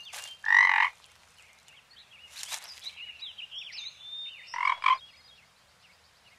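Toad croaking twice: a loud, short croak about half a second in, and another in two quick pulses near five seconds.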